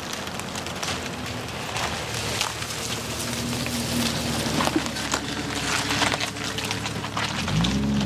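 Jeep Wrangler running as it drives over rough, frozen ground, with a steady engine note under constant crackling and popping from the tyres. Near the end the engine pitch rises as it revs.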